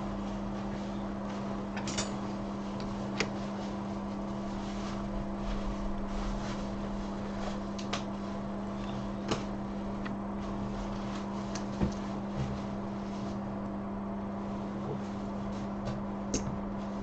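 Steady low hum of bench equipment, with scattered light clicks and taps of small tools being handled.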